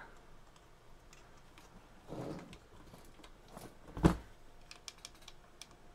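Quiet room tone with one sharp knock about four seconds in and a few faint clicks after it, from hands handling a Vertex Standard VX-3200 mobile radio. The radio itself gives no sound even through a plugged-in external speaker, the fault being repaired.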